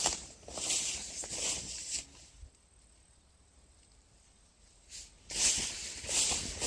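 Short bursts of rustling foliage, about one or two a second, with a pause of about three seconds in the middle.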